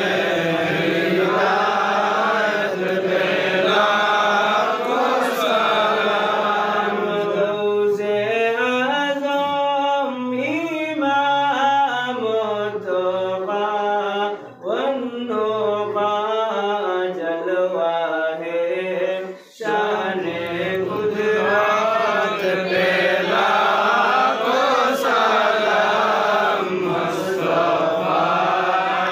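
Male voices chanting a devotional milad salam / durud in a slow, melismatic melody. From about seven seconds in, a single voice carries the tune alone, with a brief break in the middle. Just under twenty seconds in, the fuller group chant resumes.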